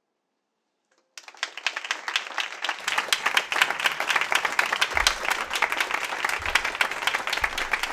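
About a second of silence, then an audience applauding steadily, many hands clapping.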